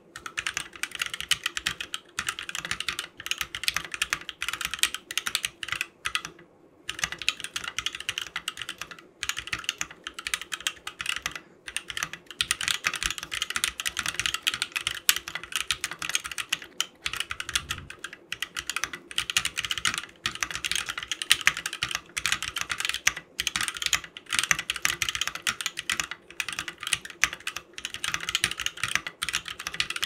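Fast, continuous typing on a custom mechanical keyboard with NovelKeys Silk Red linear switches on a polycarbonate plate in a low-profile case: a dense stream of key clacks with a few brief pauses, the longest about six and a half seconds in.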